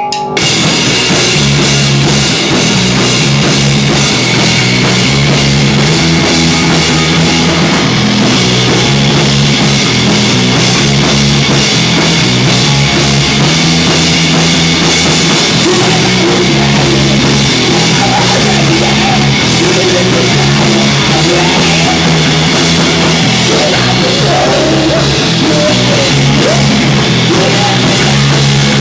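Live heavy rock band playing at full volume: drum kit, bass and electric guitars. The whole band kicks in at once right at the start and plays on without a break.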